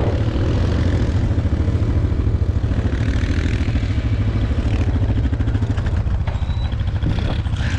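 ATV engine running loud, with a rapid, even firing beat that holds throughout.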